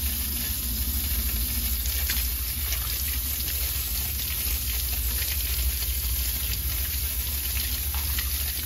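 Kitchen tap water running over a lobster tail held in the stream and splashing into a stainless steel sink, steady throughout, over a steady low rumble.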